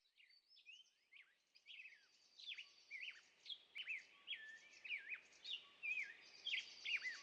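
Several songbirds singing at once, quick sweeping chirps and whistles overlapping one another, fading in and growing louder through the clip.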